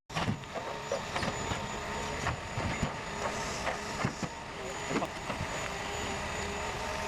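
Forestry forwarder working, its engine and hydraulics running with a steady whine, broken by repeated knocks and clanks.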